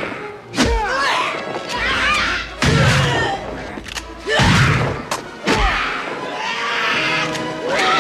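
Movie fight-scene soundtrack: a series of heavy thuds and impacts, roughly one a second, with falling screeches between them, over orchestral music.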